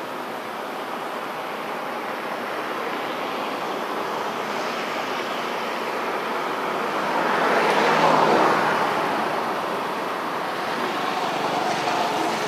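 Steady rushing background road-traffic noise, swelling to a peak about eight seconds in as a vehicle passes, then easing off.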